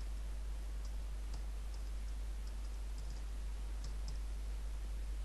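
Computer keyboard being typed on: a scattered run of light key clicks, over a steady low hum.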